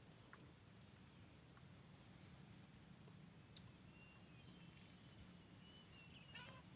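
Near silence: faint outdoor ambience with a thin, steady high-pitched tone.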